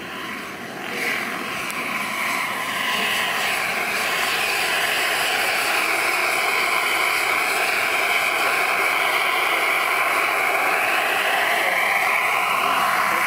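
Small gas-turbine engine of a radio-controlled scale Hughes 500 model helicopter, giving a steady high whine as it flies low past. The whine grows louder about a second in and slides up and down in pitch as the helicopter moves.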